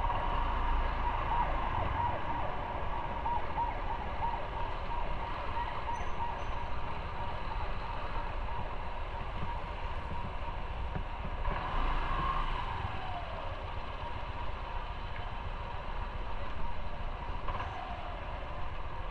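Motorcycle running at low speed: a steady low rumble with a whine that wavers, then falls in pitch about twelve seconds in and again near the end.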